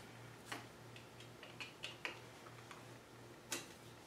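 Faint, irregular light metallic clicks and ticks, about eight of them, as the compound rest of a South Bend 13-inch lathe is worked by hand on its dovetail to feel the fit of a freshly adjusted gib. A low steady hum runs underneath.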